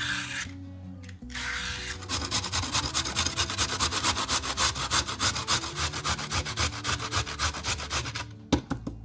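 A carrot scraped twice with a Y-peeler, then grated on the small holes of a stainless steel box grater in fast, even rasping strokes that stop near the end. Background music plays underneath.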